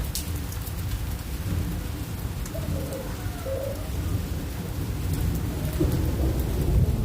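Rain falling with a low, continuous rumble of thunder that grows louder toward the end.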